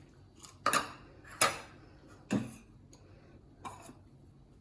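Four sharp taps of a spoon against a cooking vessel, spaced about a second apart, as spices are added to raw chicken liver.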